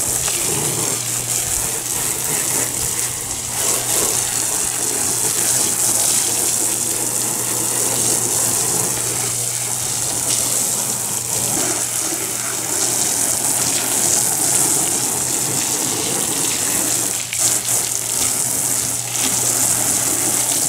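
Garden hose spray nozzle jetting water onto a soap-covered hard bow case and splashing onto the ground, a steady hiss. The water is washing off the dish-soap mask to reveal the camo paint pattern.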